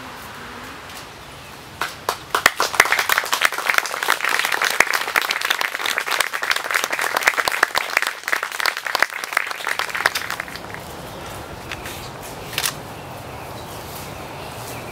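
A group of people applauding, the clapping starting about two seconds in and dying away after about eight seconds.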